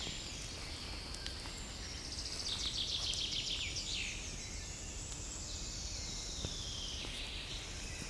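Songbirds singing in a spring forest, with a loud, fast trill about two and a half seconds in that lasts a second or so and drops in pitch at its end.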